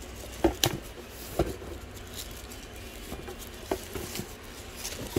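Hands handling plastic-wrapped contents in a cardboard box, with light crinkling and a few small knocks, the clearest about half a second in and about a second and a half in.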